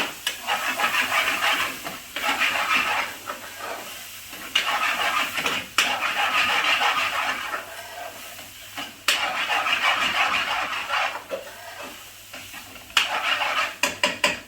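Onions with garlic ginger paste and tomato puree frying in hot oil in a pan, sizzling in surges as they are stirred, with sharp knocks of the spoon against the pan.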